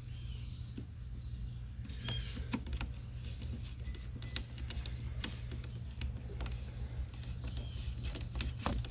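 Scattered light clicks and taps of small metal and plastic parts being handled and fitted in a truck's steering column ignition lock assembly, starting about two seconds in, over a steady low hum.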